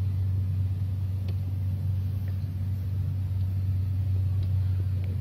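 Worn, second-hand Sakamoto 420 cc (13.5 HP) single-cylinder engine running on LPG through a converter kit. It holds a steady low drone at an even speed, with no change in revs.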